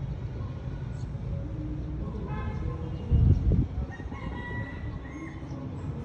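A rooster crowing: a long held call that lifts at its end, over a steady low rumble of town traffic. A brief loud low thump comes about three seconds in.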